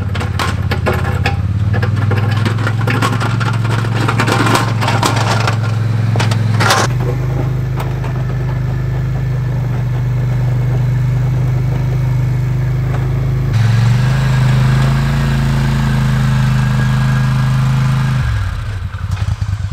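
Polaris Sportsman ATV engine running steadily as it pushes snow with a front-mounted V-plow. For the first several seconds a dense crackling clatter rides over it. The engine pitch lifts a little about two-thirds through, then drops and fades to a lower, quieter run near the end.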